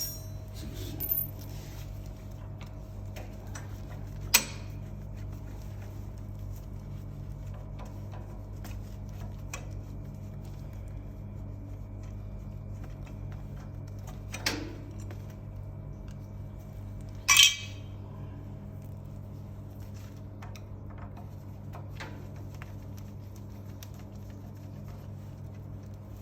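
Occasional metallic clinks and knocks of tools and parts being handled while a noodle-making machine's conveyor belt is taken off, the loudest about four, fourteen and seventeen seconds in, over a steady low hum.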